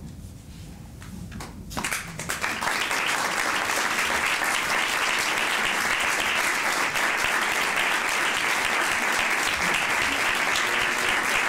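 Theatre audience applauding: a hush, then the clapping breaks out about two seconds in and quickly becomes dense, steady applause from the whole house.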